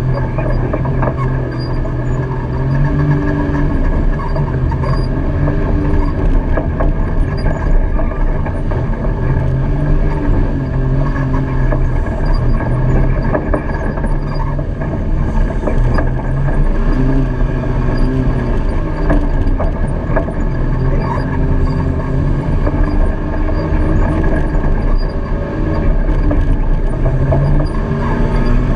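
Side-by-side UTV engine running at low, varying throttle, its pitch rising and falling gently as the machine crawls over a rocky dirt trail. Frequent short rattles and knocks come from the vehicle jolting over the bumps.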